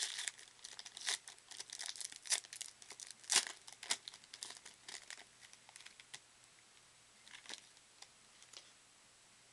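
Foil trading-card pack being torn open and crinkled by hand: dense sharp crackling in the first few seconds, then a few scattered crinkles that die away.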